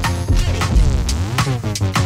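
Electronic background music with a heavy bass, a steady beat and synth lines that glide up and down in pitch.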